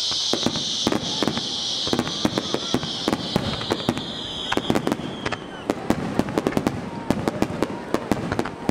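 Fireworks display: a dense, irregular run of sharp bangs and crackles from bursting aerial shells. Over it runs a steady high hiss from ground fountains spraying sparks, which dies away about five seconds in.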